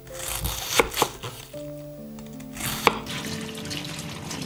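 A chef's knife slicing cabbage on a wooden chopping board, with a few sharp knocks on the board, then running water rinsing shredded cabbage in a plastic colander in a sink. Background music plays throughout.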